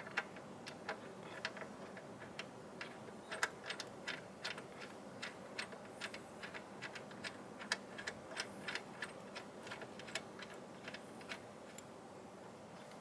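Light, irregular metal clicks, a few a second, of a 17 mm spanner being worked on the idler pulley bolt. They stop about a second and a half before the end.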